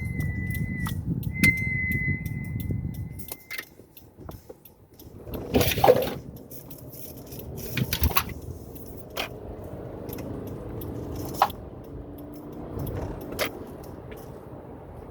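Hawk Performance Street Race brake pads squealing as a 2018 Subaru Forester brakes: a steady high-pitched squeal over the car's low rumble that stops about three and a half seconds in. After that the car keeps rolling with scattered knocks and clicks.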